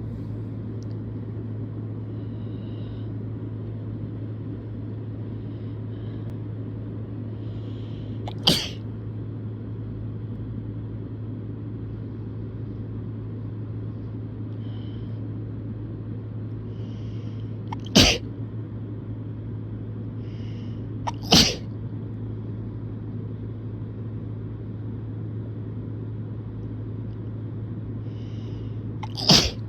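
A person sneezing four times, each sneeze a short, sudden loud burst, the first about eight seconds in and the last near the end, over a steady low hum.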